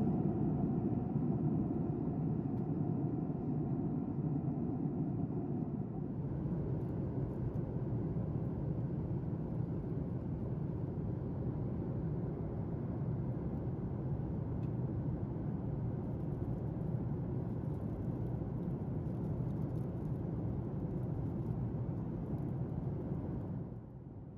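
Steady cabin rumble inside a Boeing 737 MAX 8: the drone of its CFM LEAP-1B engines mixed with airflow noise. A faint steady whine fades out a few seconds in, and the noise drops sharply just before the end.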